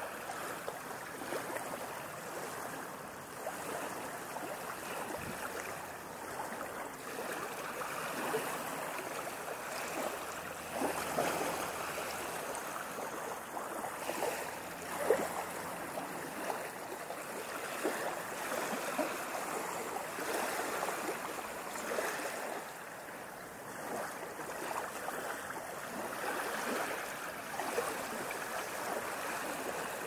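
Recorded ocean waves washing in and out, a steady hiss of water that swells and eases every few seconds, with one sharper splash about halfway through.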